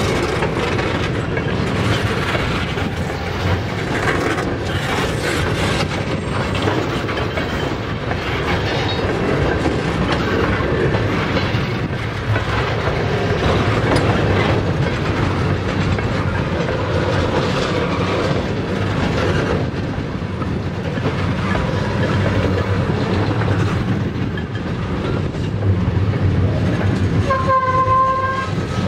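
Freight train of tank cars rolling past, a steady rumble of steel wheels on rail with clickety-clack over the rail joints. Near the end a short steady tone sounds for about a second.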